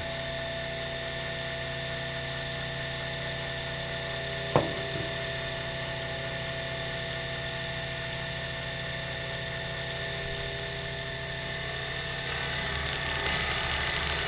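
Sherline 5410 CNC mill running, its spindle motor humming steadily as a 5/16 end mill feeds slowly, at 10 mm per minute, to plunge a countersink in an aluminium plate. A single sharp click comes about four and a half seconds in. The sound grows a little louder and rougher near the end.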